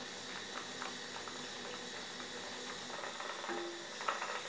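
Water at a rolling boil in a stainless steel pot on a gas stove: a steady bubbling hiss with faint small pops.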